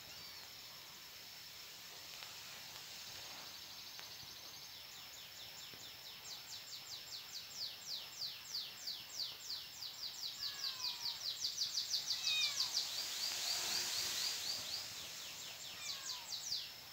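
A long run of high chirping calls, each a sharp falling note, about four or five a second. It starts about five seconds in, grows louder, then fades near the end, over a faint steady high whine.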